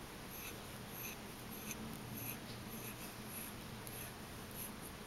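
Faint purring from a long-haired cat lying on its back, swelling and fading in waves with its breathing.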